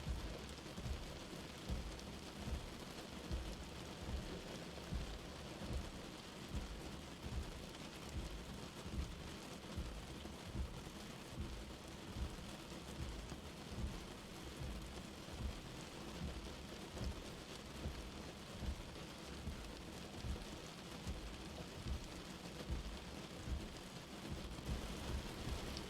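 Light rain falling with a steady hiss. Soft low thuds repeat a little more than once a second.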